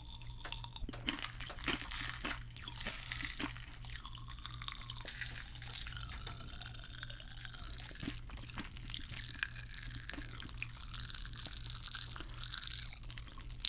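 Pop Rocks popping candy crackling in mouths held close to microphones: a dense, irregular patter of tiny pops, with a low steady hum underneath.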